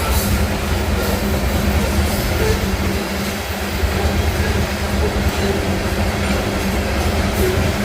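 Union Pacific train rolling by close at hand: a steady, loud low rumble with scattered clicks of wheels over the rails.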